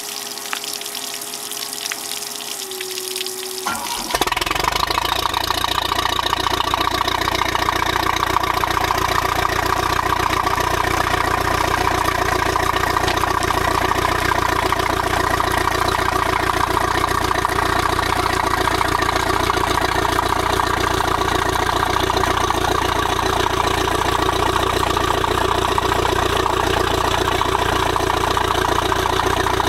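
A boat's engine: a steady whine for about four seconds, then the engine starts and runs steadily at idle.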